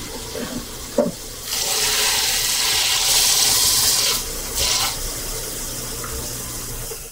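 A cobbler's finishing machine runs with a steady motor hum while a piece of leather sole is pressed against its spinning sanding wheel. This gives a loud, even grinding hiss for about two and a half seconds, a brief second touch, then a lighter hiss, as the sole is ground to fine dust.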